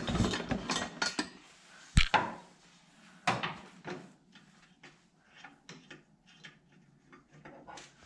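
A lantern-style light fixture being lifted out of a cardboard box and fitted onto a wall mount: a run of short knocks, clinks and rustles, the sharpest knock about two seconds in, then lighter clicks.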